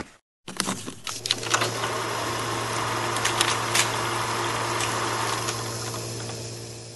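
Film projector sound effect: a steady mechanical whir with a constant low hum and scattered clicks, slowly fading away toward the end. It starts after a brief gap of silence about half a second in.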